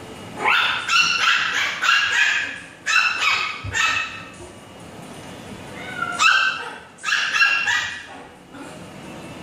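A puppy barking in rapid, high-pitched yips: one run of barks from about half a second to four seconds in, and a second run from about six to eight seconds in.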